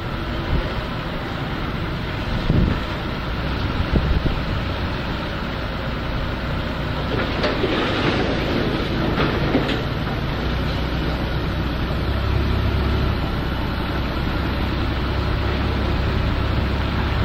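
A car driving, heard from inside the cabin: steady road and engine noise, with a swell of hiss about halfway through and a low rumble that grows stronger in the second half.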